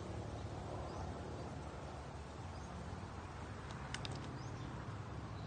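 Pond-side outdoor ambience: a steady low hum with faint bird chirps recurring throughout, and a short cluster of sharp clicks about four seconds in.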